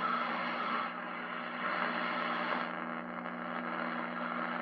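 Static hiss with a steady low hum from the 1938 Knight tube radio's speaker as its dial is tuned between AM stations; the hiss swells and fades a little as the tuning moves.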